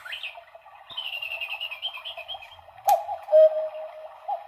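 Quartz Black Forest cuckoo clock sounding its electronic cuckoo call on the hour. A high bird-like twittering comes first; then, about three seconds in, two-note cuckoo calls begin, each a higher note dropping to a lower one, repeating about every second and a half.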